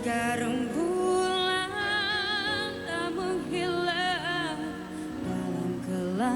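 A woman singing a slow Malay ballad over soft instrumental backing, holding long notes with a wide vibrato.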